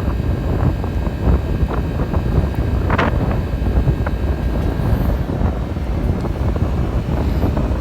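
Liebherr LTM 1100-5.2 all-terrain mobile crane running on the move, a steady low rumble, with strong wind buffeting the microphone and a brief hiss about three seconds in.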